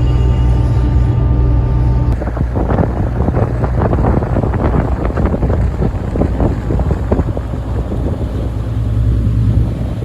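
Wind buffeting the microphone over a steady low rumble. The rumble starts as an even hum, and about two seconds in the gusty buffeting begins abruptly.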